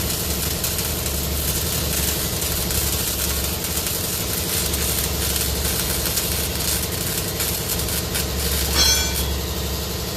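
A steady low mechanical drone, with a short high-pitched squeal about nine seconds in.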